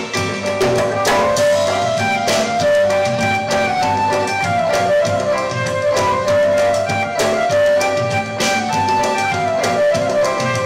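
Music for a Malay bangsawan dance number: a melody carried over a steady drum and percussion beat.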